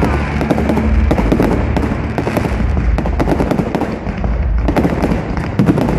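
Fireworks display going off: a dense, continuous run of crackling and popping reports, many a second, over a low rumble.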